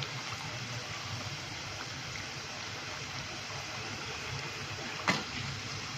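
Hot oil sizzling steadily in a pan of frying pakoras, with one brief knock about five seconds in.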